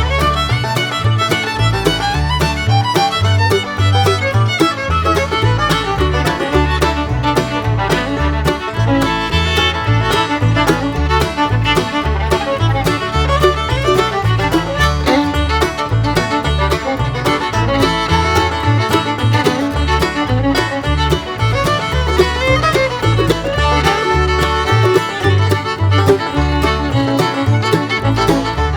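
Instrumental background music with a steady bass beat.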